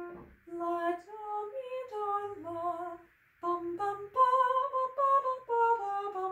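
A grand piano note fades out, then a woman's voice sings a wordless tune in two phrases of held notes that step up and down, with a short break about three seconds in.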